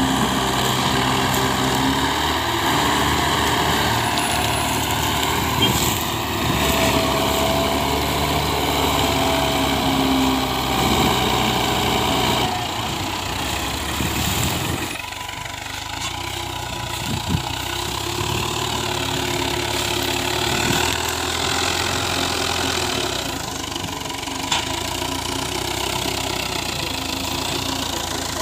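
Diesel engines of a Hindustan tractor and an old Mahindra tractor running under heavy load, hauling a loaded sugarcane trolley through the cane field. The sound changes abruptly about halfway through.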